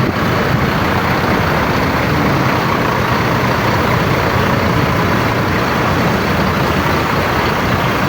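Several parked tour buses' diesel engines running at idle, a steady loud rumble.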